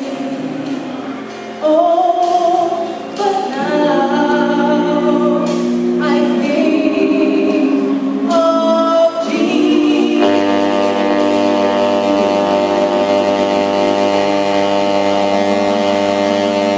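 Voices singing a hymn. About ten seconds in they settle on one long held chord, which stops just before the end.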